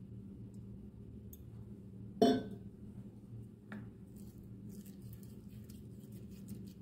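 A small stainless steel bowl gives one sharp ringing clink about two seconds in and a lighter tap a moment later, then a spoon scrapes and stirs a thick spice-and-water masala paste in the bowl. A steady low hum runs underneath.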